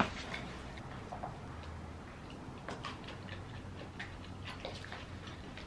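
A fork clicking lightly against a ceramic bowl of salad as it is eaten: a few short, scattered clicks over a faint room background.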